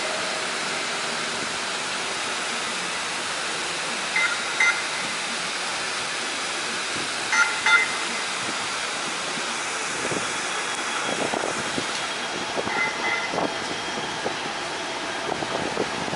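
Siemens S70 streetcar approaching and passing through a city intersection over steady street traffic noise, its running sound growing rougher and louder in the last few seconds. Three pairs of short, high dings ring out, about 4, 7 and 13 seconds in.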